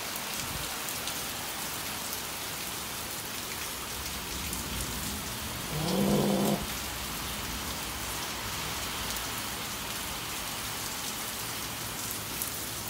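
Steady rain falling. About six seconds in, a single drawn-out animal cry, just under a second long, rises above the rain.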